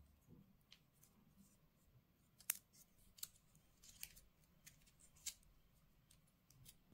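Faint, scattered clicks and light taps of unboxing packaging being handled, with the sharpest click about two and a half seconds in and another near five seconds.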